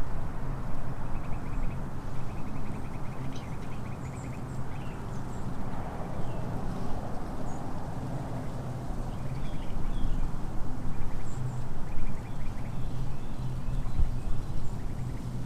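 A steady low rumble with a faint hum, with small scattered bird chirps and a few short, rapid chattering trills above it.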